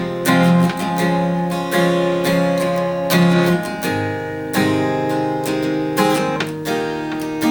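Acoustic guitar strumming held chords, with no singing over them.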